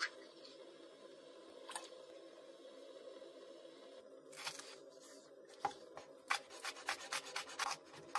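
Kitchen knife cutting green onions on a wooden cutting board: a few scattered cuts, then a quick run of about eight sharp chops in the last two seconds.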